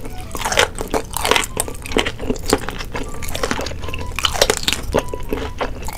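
Close-miked ASMR eating: a piece of raw fish being bitten and chewed, with a run of irregular crisp crunches, very crunchy ("kriuk-kriuk").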